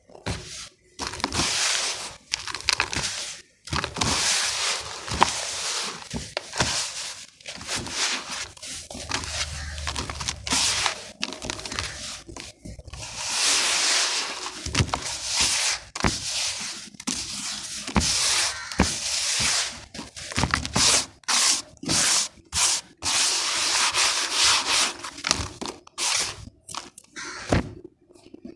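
Hands rubbing, scooping and stirring dry gritty sand-cement powder and soil in a plastic tub: rough hissing scrapes in irregular strokes with short pauses between them.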